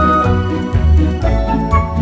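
Background music with a steady bass beat under a melody of held notes.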